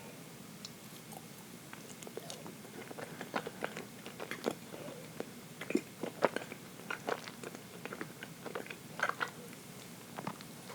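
Close-up chewing of dense chocolate cake: after a quieter start, a steady run of short, wet mouth clicks and smacks from about two seconds in.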